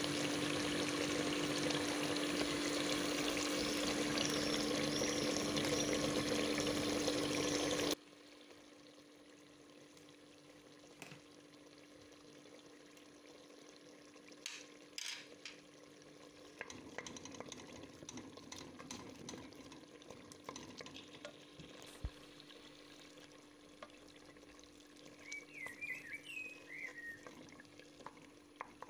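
Chicken pieces frying in a pot, a loud, steady sizzle that cuts off suddenly about eight seconds in. After that the pot is much quieter, with a few scattered clicks, and near the end a wooden spoon scrapes and stirs tomato paste in among the chicken.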